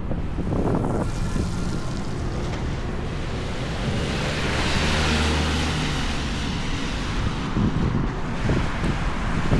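City street traffic, with a vehicle passing about halfway through: its engine hum and tyre hiss rise and fade.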